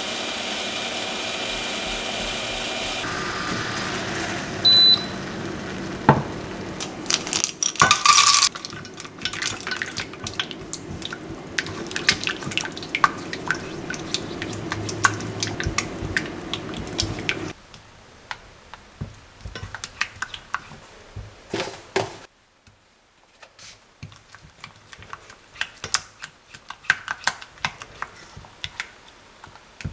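A silicone spatula stirring chocolate as it melts into hot cream in a saucepan: soft wet squelches and many light clicks and scrapes against the pot, with a few louder knocks in the first eight seconds. A steady hum runs underneath and stops a little past halfway.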